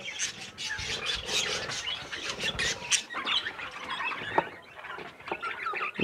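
A flock of budgerigars chattering in their cages: many rapid, overlapping short chirps and squeaks.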